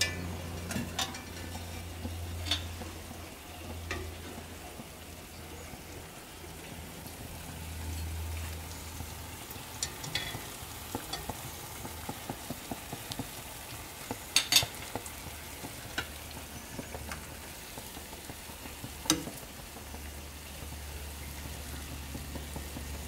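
Jalebi batter spirals frying in hot oil, sizzling steadily, with scattered sharp clicks of a metal skimmer and skewer against the pan and pot, the loudest a quick cluster about halfway through and another single click a few seconds later.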